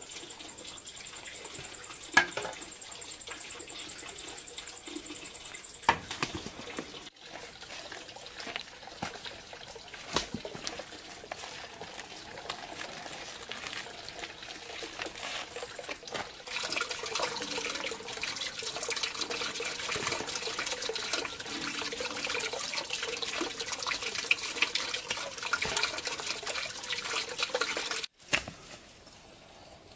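Running water splashing and trickling, growing louder about halfway through and cutting off suddenly near the end, with a few sharp knocks early on.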